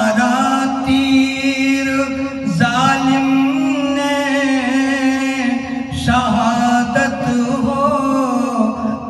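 A man singing an Urdu Muharram manqabat in long, drawn-out ornamented phrases, with a steady low drone underneath.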